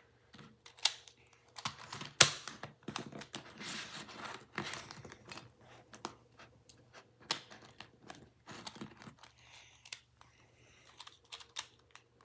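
Plastic Rubik's cube pieces clicking and clattering in quick, irregular bursts as a cheap cube is pulled apart piece by piece.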